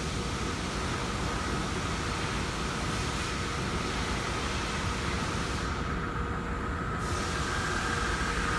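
Meta-Lax stress-relief vibrator running on a clamped steel weldment during its frequency ramp. It makes a steady mechanical rumble with a thin whine over it, and the whine climbs slightly in pitch near the end as the ramp speeds up.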